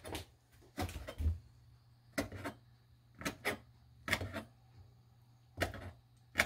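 Kitchen knife slicing a dried red chili pepper into thin rings on a cutting board: a dozen or so short, sharp taps at uneven intervals.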